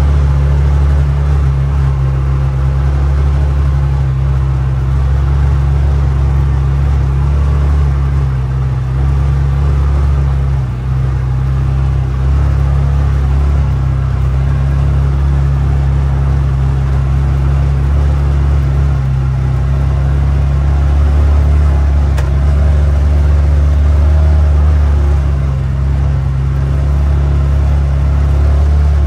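CFMoto UForce 600 side-by-side's single-cylinder engine running steadily as the machine pulls through heavy wet snow: a loud, even low drone that dips briefly about eleven seconds in.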